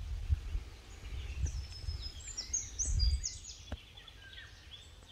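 Small birds chirping and twittering in short high calls, busiest around the middle, over a low uneven rumble that dies away after about three and a half seconds; a single sharp click at that point.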